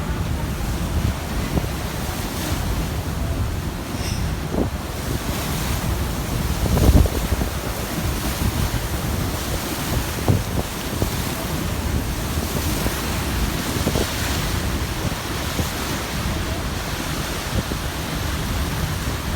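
Wind buffeting the microphone over water washing around a boat, a steady rumbling rush. A heavier low thump about seven seconds in, with smaller ones around four and ten seconds.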